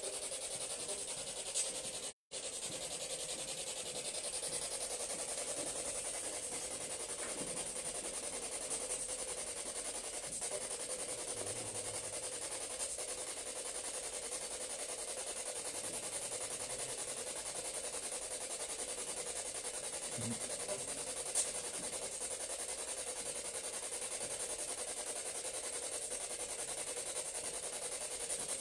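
Steady hiss of background noise with a faint even hum underneath. The sound cuts out completely for an instant about two seconds in, and there are two faint clicks, one near the start and one about two-thirds of the way through.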